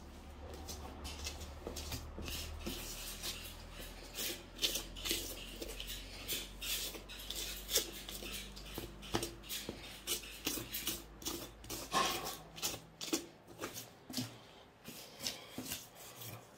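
A knife cutting and scraping through cowhide as the skin is peeled off a cow's head, in many short, irregular strokes.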